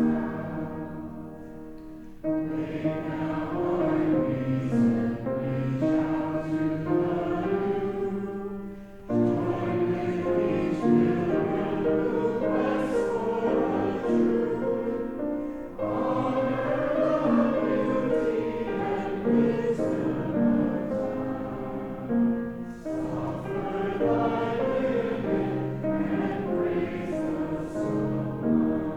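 Congregation singing a hymn together, in sung lines of about seven seconds with short breaks between them.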